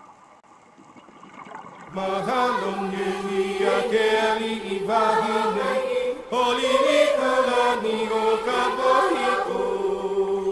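Quiet at first, then about two seconds in a background music track with long, sustained chanting voices begins.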